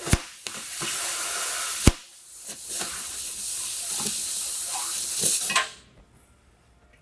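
Oxy-acetylene cutting torch cutting a hole through the steel end of an old air compressor tank: a loud steady hiss of the oxygen jet with sharp cracks, one at the start and one about two seconds in. The hiss stops suddenly about a second before the end.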